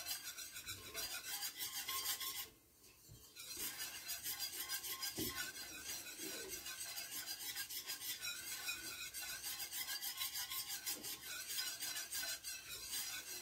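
Wire whisk scraping in quick, steady strokes around the bottom of an enameled cast-iron Dutch oven, stirring a roux of melted butter and flour. There is a brief pause about two and a half seconds in.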